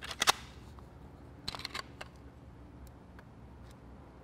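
Hard plastic clicks and clacks of 3D-printed PLA revolver parts being handled and fitted together: a sharp pair of clicks at the start, a few more about a second and a half in, then light scattered ticks.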